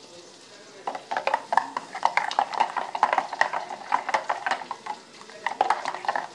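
A spoon stirring a thick mango-yogurt blend in a stainless-steel mixer jar, with quick irregular clinks and scrapes against the metal sides. The stirring starts about a second in and pauses briefly near the end.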